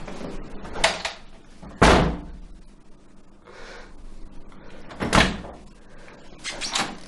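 An interior door pulled shut with a loud bang about two seconds in, after a lighter knock. About five seconds in it is opened again, with a knock and then a few latch and handle clicks near the end.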